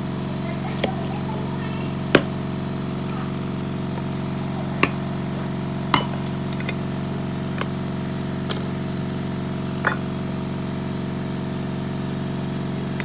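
Press-on lids of small metal paint tins being prised open with a flat metal tool: about eight sharp clicks and pops, scattered a second or so apart, as the lids catch and come loose. A steady machine hum runs underneath.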